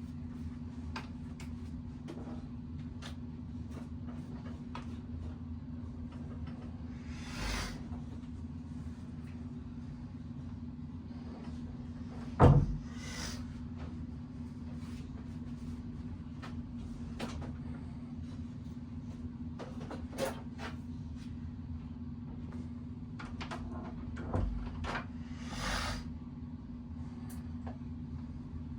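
Scattered clicks and knocks of parts and tools being handled, with one louder knock about twelve seconds in and a few short hisses, over a steady low hum.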